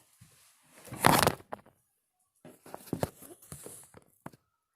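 Handling noise from small objects: one loud rustle about a second in, then a few short clicks and taps.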